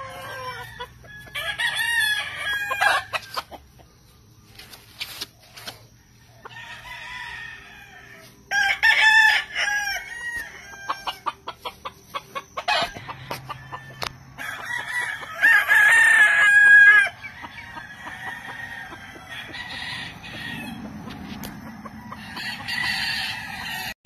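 Gamefowl roosters crowing several times, the loudest and longest crows about nine and sixteen seconds in, with shorter calls between.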